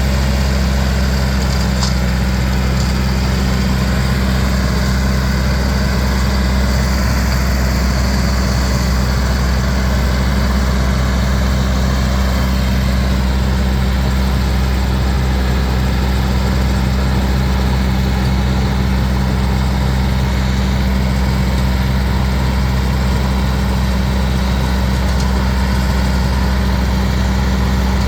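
Ford 7000 tractor's four-cylinder diesel engine running steadily at constant speed.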